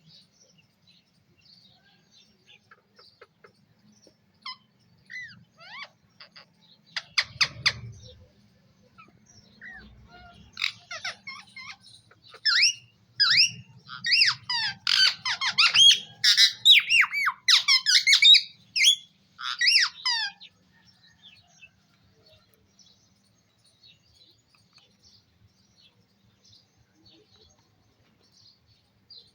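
Pet parrot chirping and squawking: scattered faint chirps, then a fast run of loud, shrill calls from about ten to twenty seconds in, fading back to faint chirps.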